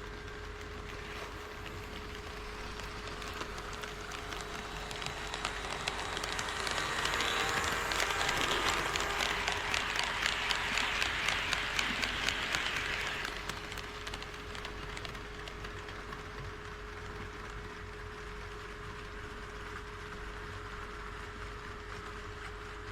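An HO scale model train running on KATO Unitrack, its wheels rolling past with a rushing sound and rapid regular clicking over the rail joints. It builds, holds loud through the middle, and drops away sharply a little past halfway.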